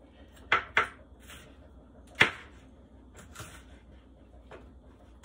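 A chef's knife cutting a red bell pepper on a plastic cutting board: a few sharp knocks of the blade striking the board. Two come in quick succession about half a second in, the loudest just after two seconds, then a few fainter ones.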